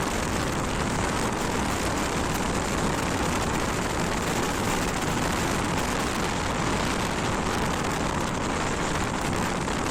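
Steady rushing wind and road noise from riding a motorcycle, with no distinct engine note standing out.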